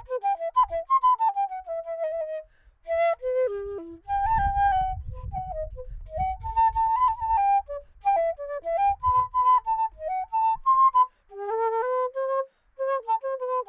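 A flute playing a solo melody in short phrases, the notes stepping up and down with brief pauses between phrases. A low rumble sits under the tune for a few seconds midway.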